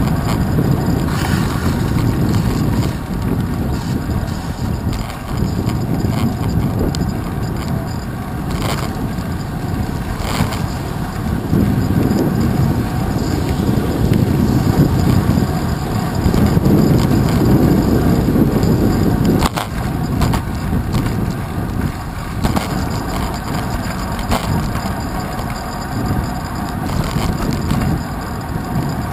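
Wind buffeting and road rumble on a handlebar-mounted action camera as a bicycle rolls over wet city asphalt, with a few sharp knocks from bumps in the road.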